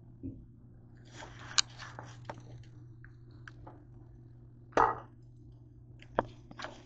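Handling noise: a few light knocks and clicks with a brief rustle, the loudest knock about five seconds in, over a steady low hum.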